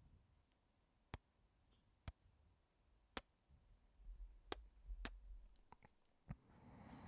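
Close-miked kisses: about seven sharp lip smacks, roughly one a second, then a soft breath near the end.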